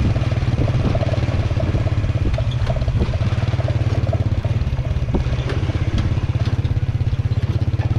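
A small engine running steadily, with a fast, even low pulse.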